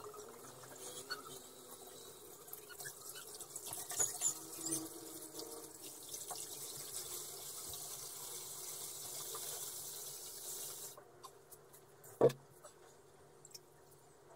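Water pouring in a stream from a large plastic water bottle into a glass aquarium, splashing onto the sand and rocks; the pour stops suddenly about three quarters of the way through. A single sharp knock follows soon after.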